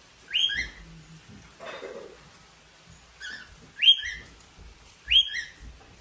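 Cockatiels giving short whistled calls, each a quick upward sweep that breaks to a lower note. There are three loud calls and a fainter one, with a brief softer noise about two seconds in.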